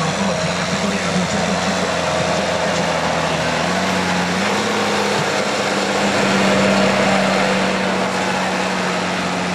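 Case IH Magnum tractor's diesel engine running hard under full load as it drags a tractor-pulling sled. The steady engine note steps up in pitch about four seconds in.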